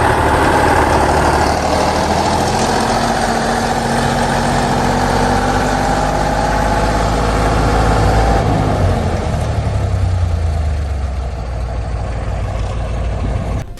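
A heavy vehicle engine running steadily, its pitch drifting up a little and later back down, with a constant hiss of noise over it.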